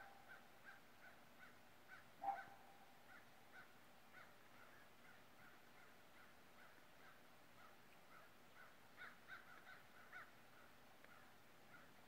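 Faint calls of a hawk and a dog carrying across the valley: a steady run of short high calls, two or three a second, with a single louder, lower call about two seconds in.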